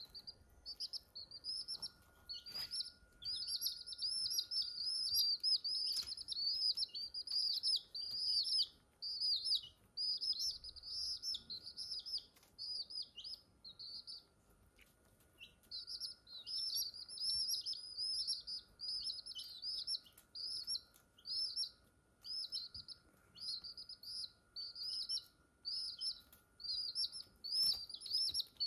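Newly hatched chicks peeping: rapid, high-pitched cheeps in runs, with a brief lull about halfway through.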